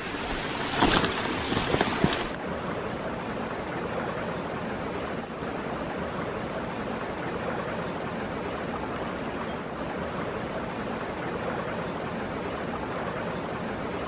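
Footsteps and rustling through forest undergrowth for about two seconds, then a steady, even hiss-like noise with no tones or rhythm.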